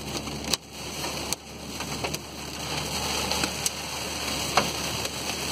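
Heavy storm rain and wind beating on a car, heard from inside the cabin: a steady hiss with scattered sharp ticks of drops striking the windshield.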